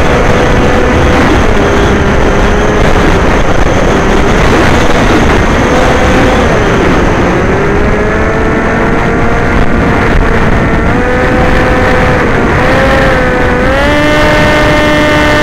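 Onboard sound of an FPV model aircraft in flight: loud wind rush over the microphone with the motor and propeller whine gliding up and down as the throttle changes, rising sharply near the end.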